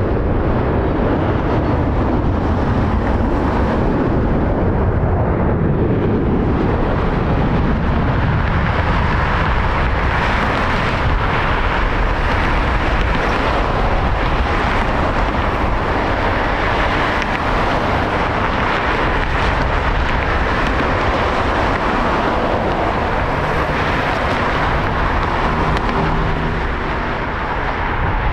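Jet engines of a Boeing 777 at takeoff power during the takeoff run, a loud steady rushing noise with no break.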